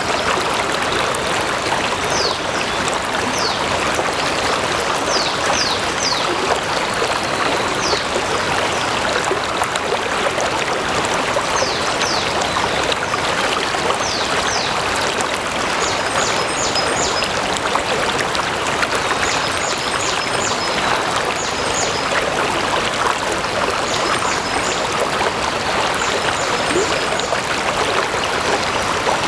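Stream water running steadily, an even rushing and trickling. Short high chirps come over it in twos and threes.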